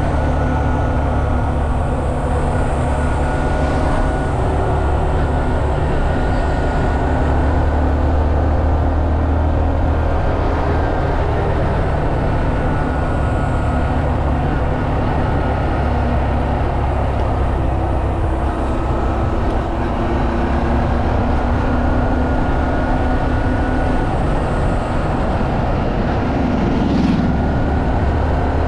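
Honda Monkey 125's single-cylinder four-stroke engine running steadily under way, over a heavy low rumble.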